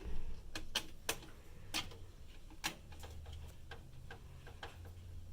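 A loose screw rattling inside a metal computer case as the case is shaken to get it out: a series of sharp, irregularly spaced clicks.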